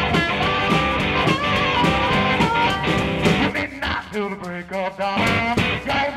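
Background guitar music. About four seconds in it thins out to fewer, held notes.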